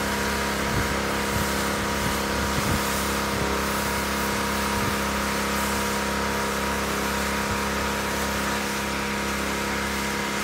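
A motor running steadily with an even hum, under the continuous hiss of water spraying from a lance onto roof tiles.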